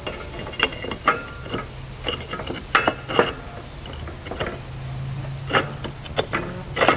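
Firebricks being set back into a concrete grill: a series of sharp knocks, clinks and short scrapes at irregular intervals, over a low steady hum.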